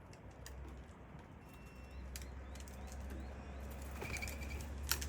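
Crested pigeons flapping their wings as they move about, with scattered sharp clicks and a few short high chirps over a steady low hum. A held high call comes about four seconds in, and a louder click near the end.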